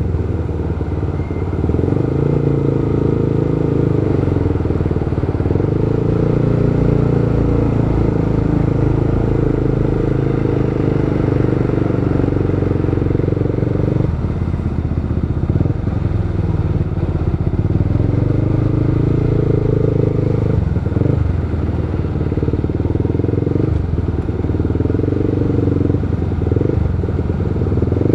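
Motorcycle engine running while being ridden. Its note holds steady, drops sharply about halfway through, then rises and falls a few times, with road and wind noise underneath.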